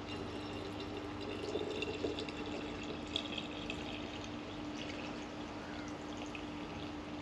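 Filtered water pouring in a steady stream from a plastic filter pitcher into a glass mason jar, filling it.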